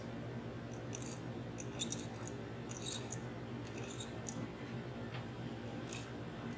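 Metal nib of a quill pen lightly scratching and ticking on a glass panel as fine lines of enamel are drawn: a faint, irregular run of small scratches over a low steady hum.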